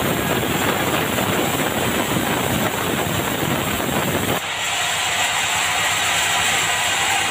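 Sawmill band saw ripping a board of dry bengkirai (yellow balau) hardwood: a loud, dense rasping noise for about the first four seconds. The sound then changes to a thinner, higher running noise of the saw with no wood in the cut.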